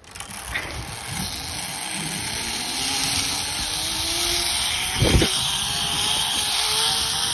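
Zip-line trolley running along a steel cable: a whine rising in pitch as it picks up speed, over a rush of wind on the microphone, with one thump about five seconds in.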